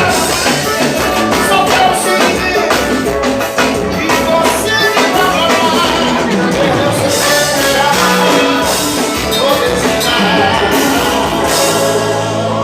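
Live band music played loud through a PA, with a steady drum beat under sustained melody lines.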